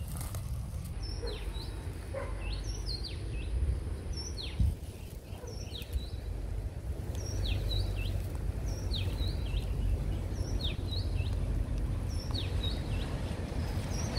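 A bird singing a short phrase of sharp, high, quickly falling notes, repeated about once a second, over a steady low rumble. A single thump about four and a half seconds in.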